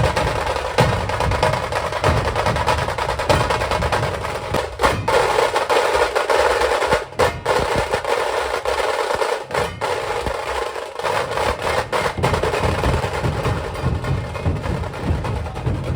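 Maharashtra dhol tasha ensemble playing loudly: fast, dense tasha rolls over deep dhol beats. For a stretch in the middle the dhol beats thin out and the tasha roll carries on, with a few brief breaks.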